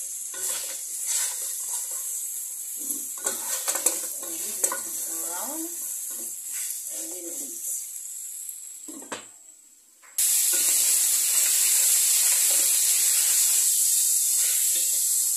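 Beef chunks sizzling as they brown in a non-stick pot, the water they cooked in having dried off, with a wooden spatula stirring them and knocking against the pan a few times. The sizzle fades out about nine seconds in, then comes back suddenly and much louder about a second later.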